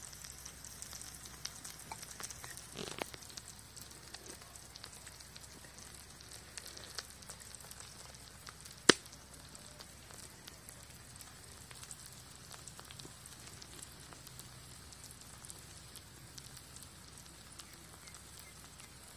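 Eggs sizzling and crackling as they fry in oil on a large flat pan. One sharp, loud pop about nine seconds in stands out above the steady sizzle.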